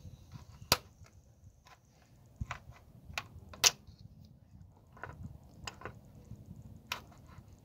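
Scattered sharp clicks and taps of metal pliers handled among engine-bay hoses and fittings, with a few louder clacks, the loudest about halfway through.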